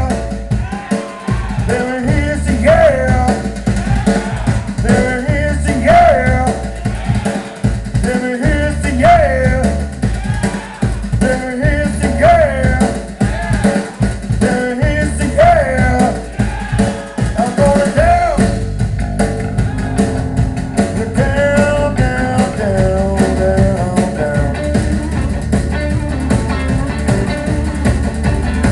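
A live rock trio of electric guitar, bass guitar and drum kit playing. Over the band a lead line bends up and down in pitch in a phrase that repeats about every second and a half, then gives way to steadier held notes about two thirds of the way through.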